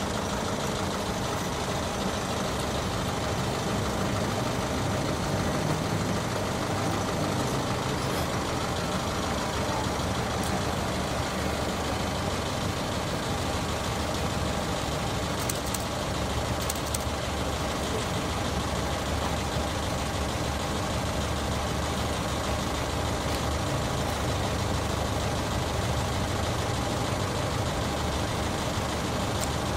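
Steady low engine rumble with a constant hiss, as of idling motor vehicles.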